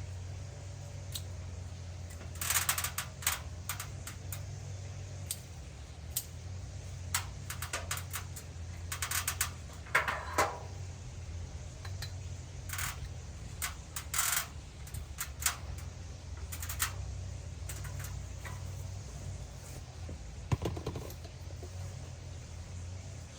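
Irregular short clicks and brief rustling bursts, a few seconds apart, over a steady low hum.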